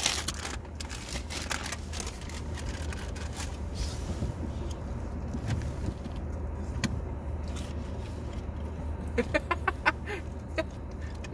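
Car engine idling with a steady low hum, heard from inside the car, with a few faint clicks. About nine seconds in comes a quick run of short, sharp sounds.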